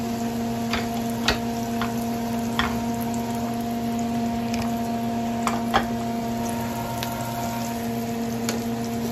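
Chicken deep-frying in a pot of hot oil, a steady sizzle and bubbling, over a steady hum. Several short clicks of metal tongs against a ceramic bowl as chicken pieces are turned in flour.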